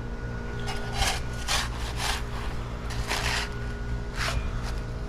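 Square-edged steel shovel scraping and spreading sand over a paver base, in about six short strokes.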